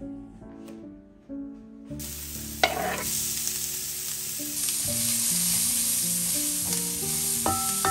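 Food starts sizzling in a hot frying pan about two seconds in, with a knock of a utensil against the pan soon after and the sizzling going on, growing a little louder, as it is stirred. Background music plays throughout.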